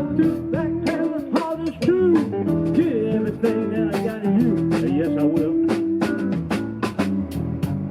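Live blues-rock band playing an electric guitar lead with repeated string bends over bass and a drum kit keeping a steady beat.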